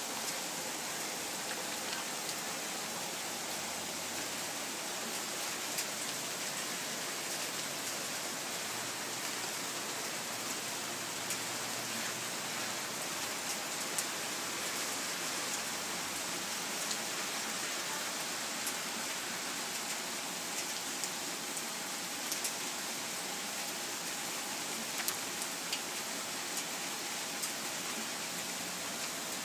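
Steady rain falling, a constant hiss with scattered sharp ticks of single drops striking close by.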